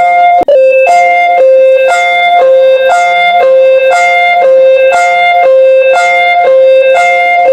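Looping emergency alert alarm tone: a steady held tone under a higher, plucked-sounding note that switches on and off about once a second. A sharp click and a brief drop-out come just under half a second in, then the loop carries on.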